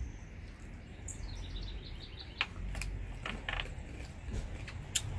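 Eating noises, a few sharp clicks and smacks from chewing and utensils, over a low background hum. About a second in, a bird gives a quick run of high chirps that step down in pitch.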